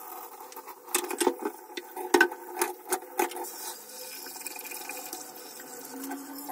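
Washing up at a kitchen sink: water running from the tap while a wooden rolling pin and a frying pan are rinsed, with a run of knocks and clatters in the first few seconds.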